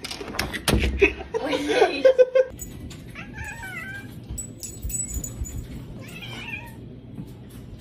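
A cat yowling in short wavering calls, about three seconds in and again around six seconds. Knocks and a short cry come first and are the loudest part.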